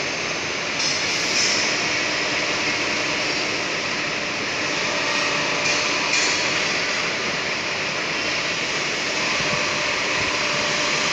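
CNC lathe running with a steady mechanical hiss and hum and a few faint steady tones.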